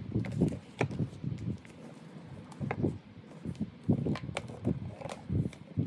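Handling of a glossy paper leaflet and a cardboard box: rustling and scraping of paper with a series of short, light taps and clicks.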